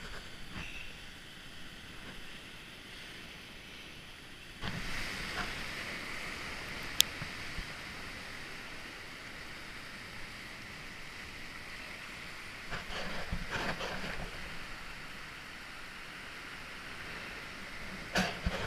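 Sea surf surging and washing over rocks, with wind on the microphone. The surf grows louder about four and a half seconds in, and there is a single sharp click a couple of seconds later.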